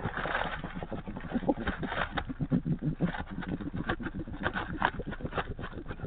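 An excited small pet animal making rapid, low, stuttering noises right at the microphone, mixed with clicks and rustling from its dry grass and leaf bedding.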